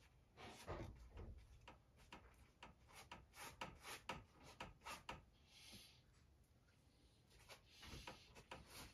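Faint taps and rubbing of a gloved hand dabbing and smearing acrylic paint across a stretched canvas: a quick run of soft taps through the first half, a short rub a little past the middle, then more taps near the end.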